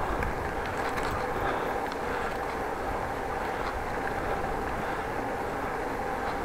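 Steady rolling noise of a bicycle on the move: tyre and road rumble mixed with wind on an action camera's microphone, with a faint steady whine.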